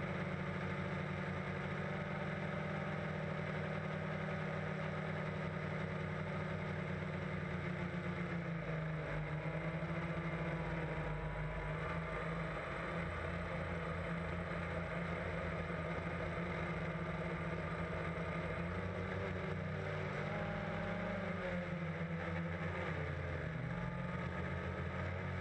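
DJI Phantom quadcopter's motors and propellers droning steadily, heard from the GoPro mounted on the drone. The pitch shifts about a third of the way in and again near the end as the motors change speed.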